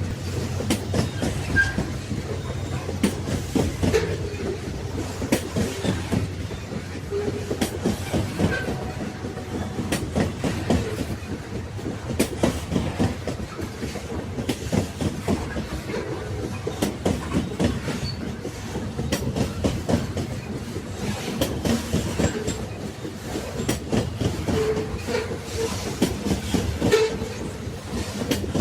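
Train carriages rolling along the rails: a continuous rumble with the wheels clattering over the track in irregular knocks, and a few brief squeaks.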